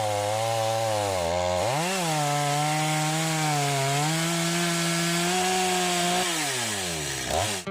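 Two-stroke chainsaw running hard as it saws through wood, its pitch jumping up about two seconds in, holding high with a brief dip, then sliding down near the end as the throttle comes off.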